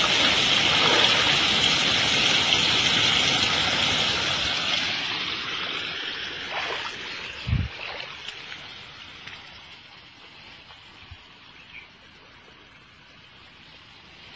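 Muddy rainwater runoff rushing along a field channel. It is loud at first and fades to a quieter flow over the middle of the stretch. A single low thump comes about seven and a half seconds in.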